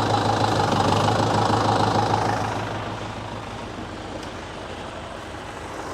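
Loader tractor's engine running steadily, louder for the first two and a half seconds while the loader hydraulics pull the chain that rolls the log, then settling to a quieter run.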